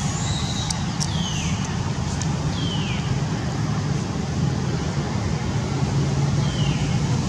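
Steady outdoor background noise: a low rumble and hiss, with three short, high, falling chirps about a second, two and a half seconds and six and a half seconds in.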